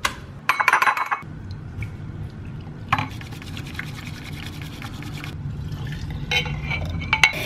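Matcha being prepared. A clink of ceramic and glass about half a second in, then a bamboo whisk (chasen) whisking matcha in a ceramic bowl in fast scratchy strokes for about two seconds. Near the end comes liquid pouring and glass clinking at a glass mason-jar mug.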